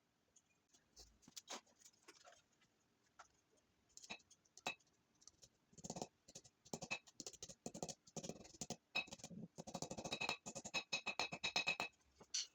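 Metal parts being handled and worked by hand: scattered clicks, taps and scrapes that come thicker about halfway through, with a fast run of clicking near the end.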